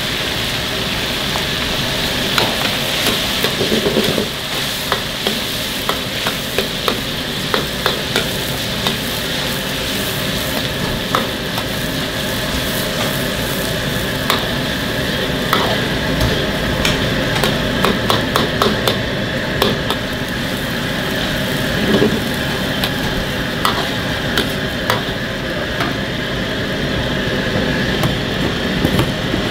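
Diced meat frying in deep oil in a wok, with a steady sizzle, broken by frequent sharp clicks and scrapes of a metal ladle stirring against the wok.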